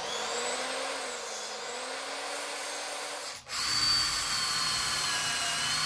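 Power drill boring pilot holes in timber door-frame pieces. The motor spins up and runs steadily for about three seconds, stops for a moment, then runs again for about two more seconds and cuts off.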